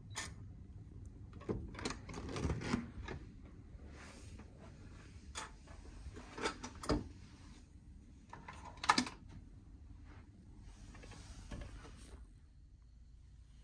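A hotel room door being opened with a key card: a click as the card is held to the electronic lock, then the lever handle and latch working as the door swings open. Several more clicks and knocks follow, the loudest a sharp knock about nine seconds in.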